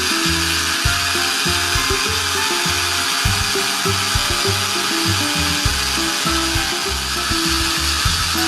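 Small battery motor of a toy kitchen appliance whirring steadily, heard over background music.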